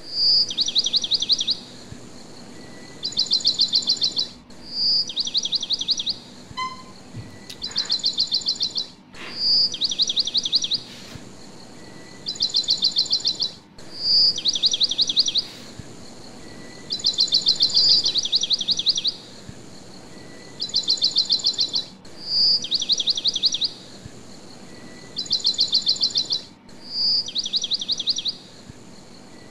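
Bird song on a soundtrack: a short clear note followed by a rapid trill of quick falling chirps, the same phrase repeating every two seconds or so as if looped, over a faint steady hiss.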